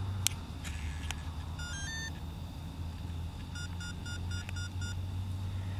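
Electronic speed controller of an electric Compass Atom 500 RC helicopter sounding its start-up tones through the motor as the 6S battery pack is connected. A few clicks come first, then a short rising run of beeps about two seconds in, then a string of quick, even beeps, all over a steady low hum.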